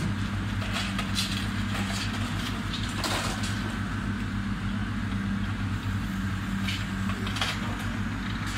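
Diesel engine of heavy demolition equipment running steadily, with scattered cracking and crunching of debris as a long-reach excavator tears at the fire-damaged house.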